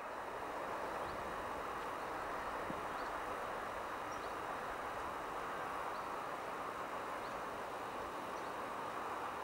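Countryside ambience at a trackside field: a steady, even hiss with faint, short high chirps repeating about every second.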